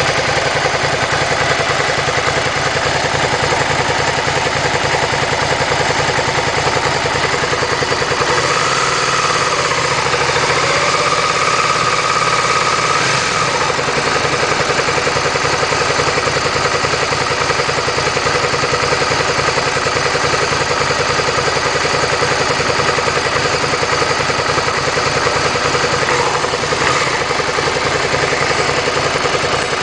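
Suzuki SV650's 645 cc V-twin engine idling steadily at operating temperature.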